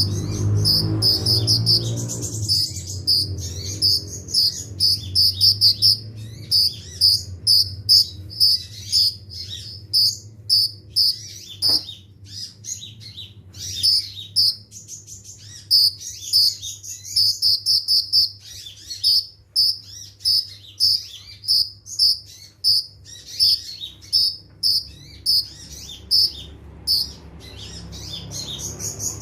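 Olive-backed sunbird (kolibri ninja) singing: fast runs of short, high, sharp chirps repeated in rapid bursts, with brief pauses between phrases. A single click about twelve seconds in.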